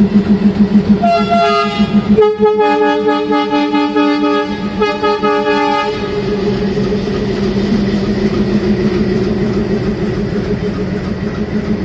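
Locomotive horn of a departing express passenger train: a short toot about a second in, then a long blast of nearly four seconds that dips briefly near its end. A rhythmic low throb from the locomotive comes before the horn, and a steady rumble follows it.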